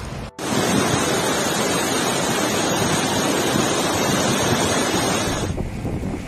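A river in flood: fast, churning brown floodwater rushing through a channel as one loud, even torrent. It cuts off about five and a half seconds in and gives way to wind buffeting the microphone.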